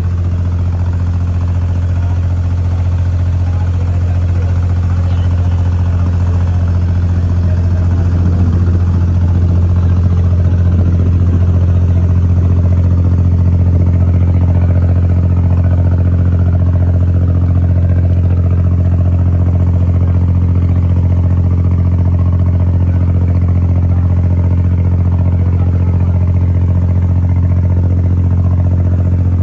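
An abra's inboard diesel engine running steadily under way, a constant low hum with a slight rise in level about ten seconds in.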